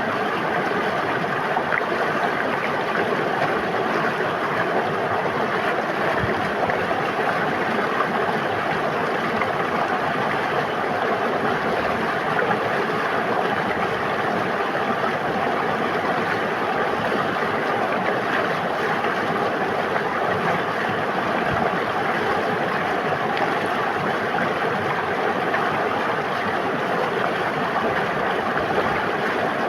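A river flowing, a steady, even rush of water with no breaks or changes.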